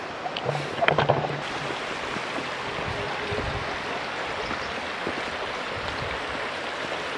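Shallow stream rushing and splashing steadily over stones and gravel, with a brief louder sound about a second in.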